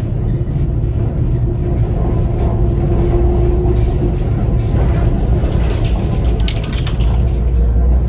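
Athens tram running along its track, heard from inside the car: a steady low rumble with a hum for a few seconds in the first half, and a brief spell of high-pitched rattling about two-thirds of the way through.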